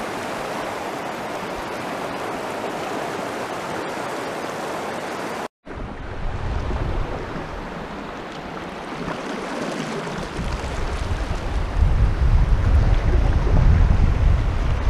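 Fast river current rushing steadily. After a brief dropout about five seconds in, the river is heard from a moving canoe, with wind buffeting the microphone in low rumbles that grow louder toward the end.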